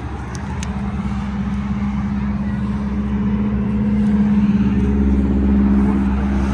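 A motor vehicle's engine running close by, a steady low hum that grows louder over the first few seconds, with a few light clicks near the start.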